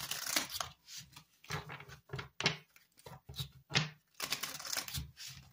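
A deck of cards being shuffled by hand: a run of short, irregular rustles and clicks as the cards slide and snap against each other.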